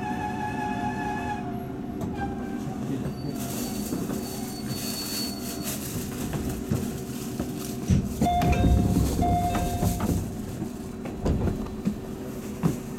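Running noise inside a JR 211 series electric train car: a steady rumble of wheels on rail, with a faint motor whine that stops about a second and a half in. Around eight to ten seconds in the rumble grows louder, with short high squealing tones.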